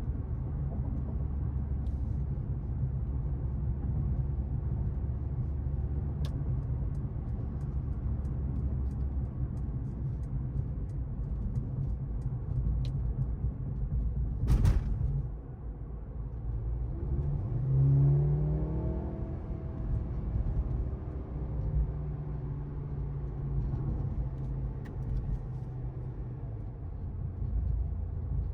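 Mercedes-AMG C43's turbocharged four-cylinder engine and road noise at a steady cruise. About halfway through there is one sharp thump, the loudest moment; a few seconds later the engine note rises briefly as the car pulls, then settles back to a steady drone.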